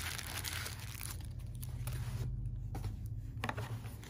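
Soft rustling of a cotton dust bag and tissue paper as a sandal is handled, strongest in the first second, over a low steady hum.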